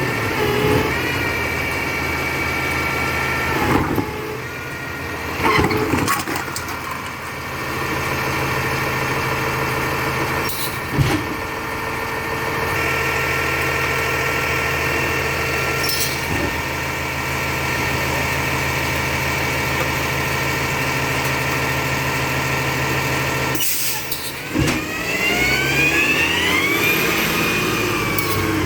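Labrie Expert 2000 recycling truck running with a steady engine hum, broken by several sharp knocks. Near the end the pitch climbs in a rising whine.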